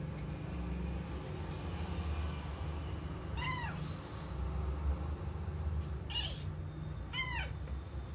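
A small kitten meowing three times, each a short high-pitched meow that rises and falls in pitch, over a steady low hum.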